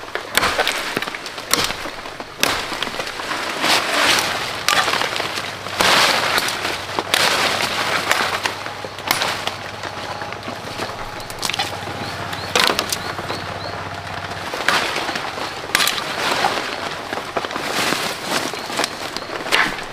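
Machete chopping into branches and brush: sharp, irregular chops every second or two, with twigs and leaves rustling and snapping in between.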